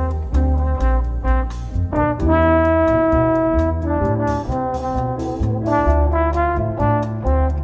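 Instrumental background music: a brass melody over a bass line and a steady drum beat.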